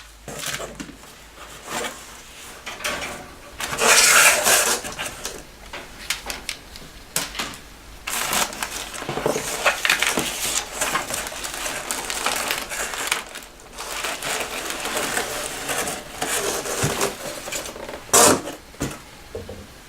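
Keyboard packaging being opened and handled: crinkling and rustling throughout, with louder bursts about four seconds in and again near the end.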